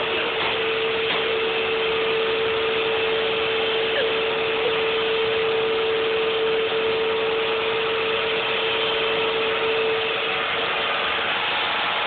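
Upright vacuum cleaner running steadily: a loud rush of air with a constant whine from the motor.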